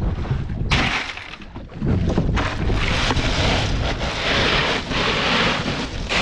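Wind rushing over the microphone with water noise around the hull, a steady hiss with a brief lull about a second in.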